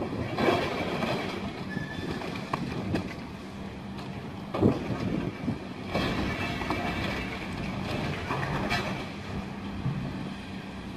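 Caterpillar high-reach demolition excavator running steadily while its jaws tear into a steel-trussed roof and brick wall, with crunches and knocks of breaking debris, the sharpest about half a second, four and a half, six and nearly nine seconds in.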